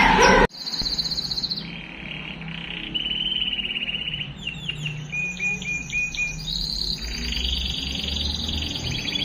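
Male timbrado canary singing: a long run of rolling trills and repeated short notes, high and clear, changing from one trilled phrase to the next every second or so. A louder, fuller sound cuts off abruptly about half a second in.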